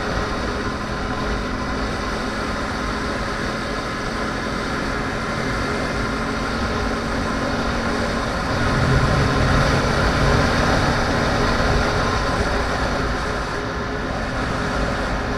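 2010 Yamaha R1 sport bike's crossplane inline-four engine running at road speed, mixed with steady wind and road rush. It grows louder about nine seconds in and eases back a few seconds later.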